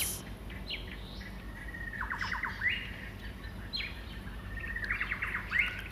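A songbird singing: two similar phrases about two seconds apart, each a whistled note that runs into a quick trill.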